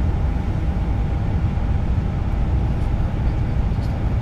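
Steady low rumble of machinery inside an airliner's cockpit on the ground, with a faint steady hum over it. Engine 1 has not yet been started.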